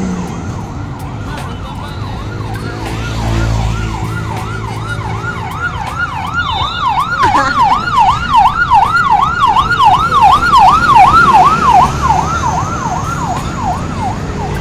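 Fire truck's electronic siren on a rapid yelp, its pitch sweeping up and down about two to three times a second, growing louder toward the middle and fading near the end. Truck engines rumble underneath.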